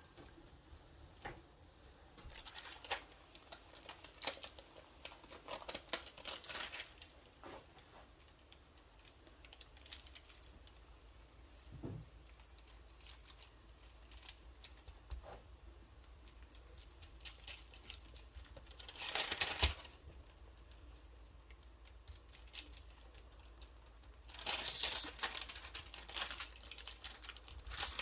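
Scattered light clicks and short bursts of rustling and crinkling, as of small objects and packaging being handled, with the longest rustles about two-thirds of the way in and again near the end.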